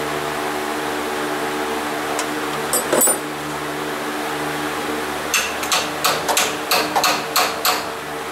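Steady mechanical hum throughout, with one sharp click about three seconds in and then a quick run of about eight sharp clicks, roughly three a second, in the last three seconds. The clicks come from work on the mounting bolts of a Harrison A/C compressor being removed from a 1989 Chevy S10.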